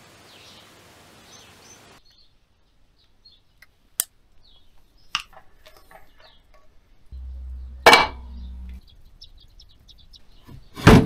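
Metal clinks and clanks from tools and electric hub motor parts being handled on a workbench: a handful of separate sharp knocks a second or more apart, the loudest about eight seconds in and near the end. A low hum runs briefly from about seven to nine seconds in.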